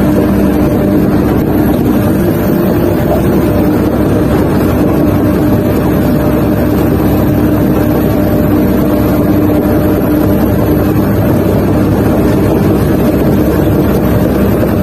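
Sumitomo SH250 excavator running steadily, heard from inside the cab: an even diesel engine drone with a few held tones.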